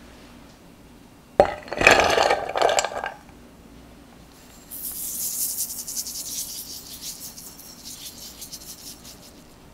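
Glass mixing bowls clinking as a bowl of heavy cream is set down onto a bowl of ice water, the loudest sound, lasting under two seconds. Then, from about halfway in until near the end, granulated sugar is poured into the cream with a fine, high, grainy hiss.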